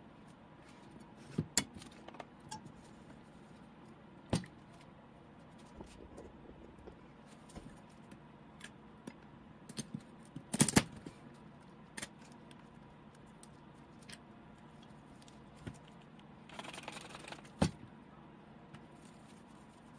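Scattered clicks, taps and light knocks of small objects being handled, with the loudest cluster about halfway through and a short rustle near the end.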